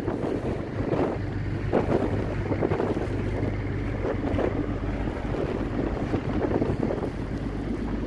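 Blizzard wind buffeting the microphone in irregular gusts.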